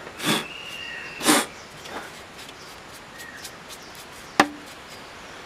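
Two short breathy rushes of air about a second apart, then a single sharp click about four seconds in, as hands work inside the opened back of a CRT television.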